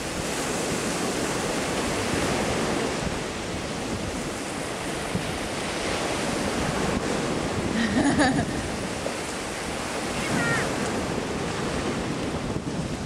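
Small waves breaking and washing on a beach, with wind buffeting the microphone. A brief distant voice rises over the surf about eight seconds in.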